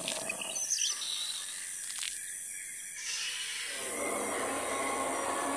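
Jungle ambience for the outro: a steady high insect buzz with short bird chirps in the first second or so and a click about two seconds in. About three seconds in, a broader, louder noise comes in and holds.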